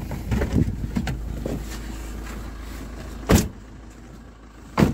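A car's engine running low and steady, with small knocks and rattles in the first second or so, then two sharp, loud thumps about a second and a half apart near the end: car doors slammed shut.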